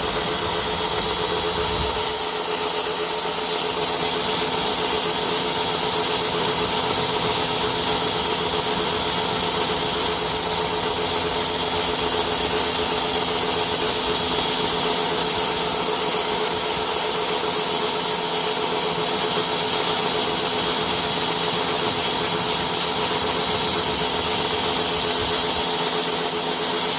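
Pressure washer running steadily, its motor and pump humming under the hiss of the high-pressure water jet as it strips old paint off a boat hull.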